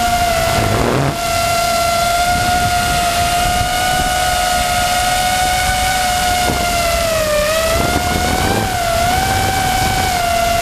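FPV quadcopter's electric motors and propellers whining in flight, heard close from the onboard camera. The pitch wavers with the throttle, sagging a little about two-thirds of the way through and climbing back near the end.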